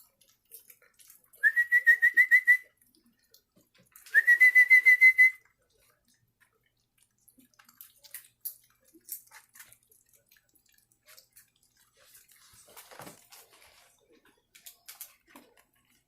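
A person whistling twice, each a quick rising note that breaks into a warbling trill, a call to wake the puppies and bring them to the food. Faint soft clicks follow.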